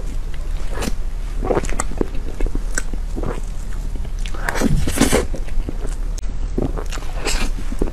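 Close-miked eating sounds of soft whipped-cream cake taken by the spoonful: scattered short mouth noises and small clicks, loudest about halfway through, over a low steady hum.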